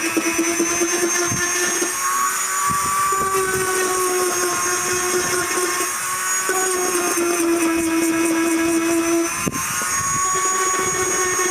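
Dremel rotary tool with a sanding attachment running at high speed against a sheep hide, a steady whine whose pitch shifts slightly as it is pressed in and eased off.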